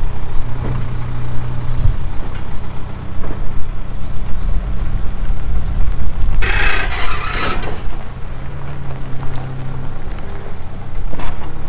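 Engine of a small loader running steadily as it slowly tows an old steel truck chassis on its own wheels over gravel. About six and a half seconds in there is a loud hissing burst lasting just over a second.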